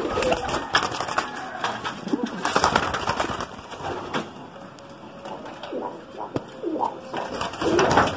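Domestic pigeons cooing in the loft, short low coos repeating in the second half, with scattered rustles and knocks in the first few seconds.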